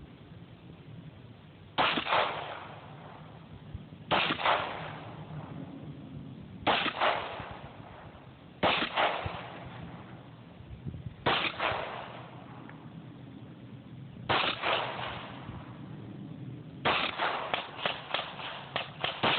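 Glock pistol shots: six single shots spaced a couple of seconds apart, each ringing briefly off the range, then a quick run of shots near the end.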